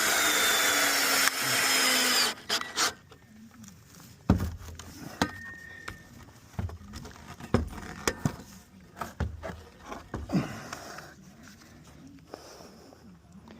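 Power drill driving a bolt into the fence, running in two spurts for about two seconds, its pitch sagging slightly under load. After that, scattered knocks and clunks.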